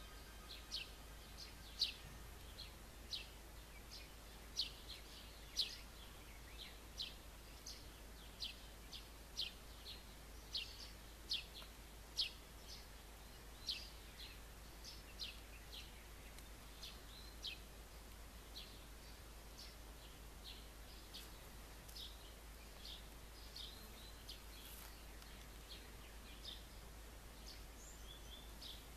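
A bird chirping over and over: short, high chirps about once or twice a second, fading to fainter calls in the second half.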